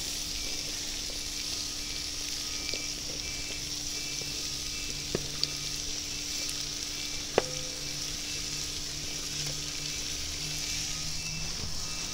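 Diced onion, carrot and pork belly sizzling steadily in hot oil in a kazan. A few short clicks near the middle come as more chopped onion is tipped in from a metal tray.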